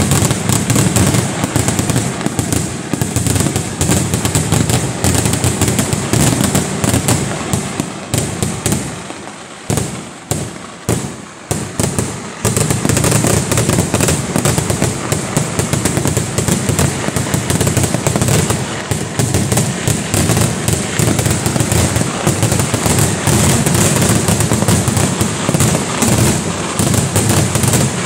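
Kerala temple fireworks (vedikettu) finale: a dense, continuous barrage of firecrackers and fireworks bursts going off together. About nine seconds in it thins to a few separate bangs, then the barrage resumes at full strength.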